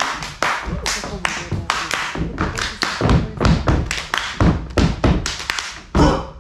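Performers clapping and stamping their feet on a wooden stage floor in a rhythmic dance routine: quick sharp claps and taps, with heavier stamps on the boards from about halfway through.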